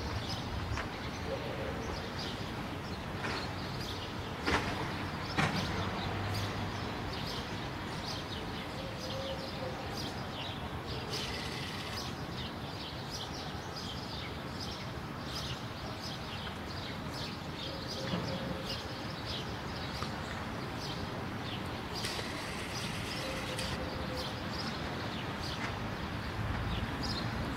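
Outdoor city ambience: a steady background of distant traffic with many short bird chirps throughout, and two sharp clicks about four and a half and five and a half seconds in.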